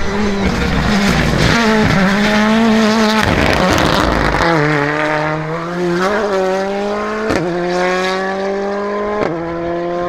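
Rally car at full throttle, its engine note high and steady, then a burst of gravel and tyre noise as it slides through a corner onto a loose road. It then accelerates away with the pitch climbing, with two sharp cracks at gear changes about seven and nine seconds in.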